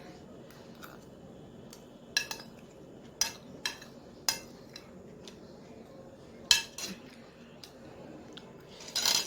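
Cutlery clinking and scraping against a plate as a plate of chowmein is eaten: a scatter of short sharp clicks, with a busier run of clinks near the end.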